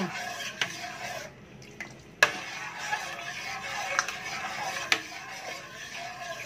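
Metal ladle stirring in a stainless steel pot, with scrapes and sharp clinks against the pot about once a second, the loudest a little over two seconds in. The coffee-and-gulaman mixture in the pot is heating and is close to the boil.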